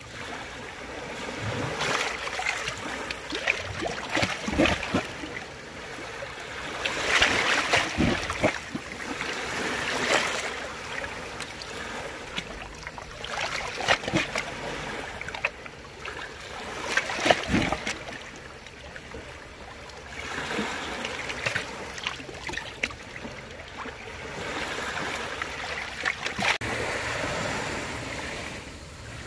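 Small sea waves washing onto the shore and drawing back, swelling every few seconds, with a couple of sharp knocks.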